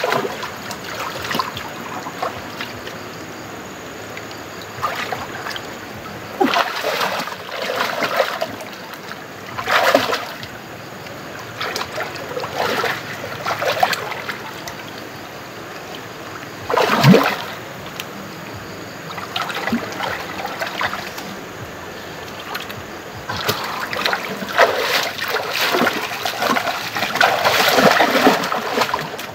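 Hands splashing and sloshing in shallow muddy water while groping for fish, in separate bursts with the loudest splash about halfway through and more near the end, over a steady trickle of flowing water.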